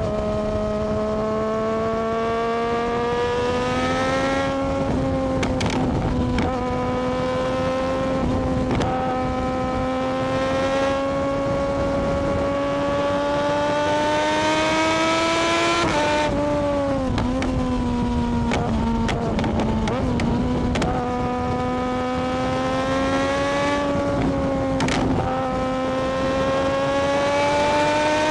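Triumph Daytona 675R's three-cylinder engine running on the move, its pitch climbing slowly under throttle. The pitch drops sharply about sixteen seconds in as the throttle is rolled off, then climbs again, with a rush of wind noise underneath.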